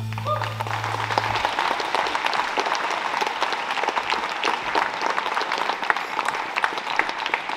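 Audience applauding steadily at the end of a piece, as the last held low note of the strings dies away in the first second and a half.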